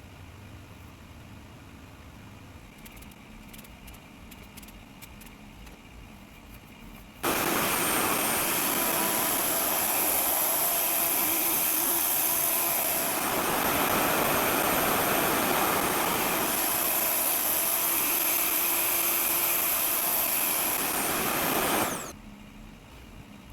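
RevAir reverse-air hair dryer switched on about seven seconds in, running with a loud, steady rush of air and motor hum, then switched off suddenly shortly before the end. Before it starts there are only faint light clicks of handling.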